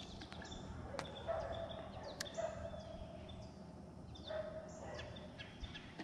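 Fishing reel being cranked in short spurts, its gears whirring briefly several times, with a couple of sharp clicks: a hooked fish being reeled in.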